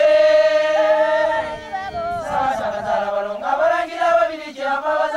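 Baganda group singing a baakisimba song. One voice holds a long note, then several voices come in together about two seconds in.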